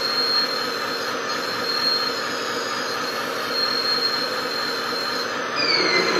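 Electric drive of radio-controlled model vehicles whining steadily under load as the wheel loader pushes against the monster truck. A thin high squeal comes and goes, with a few falling squeals near the end.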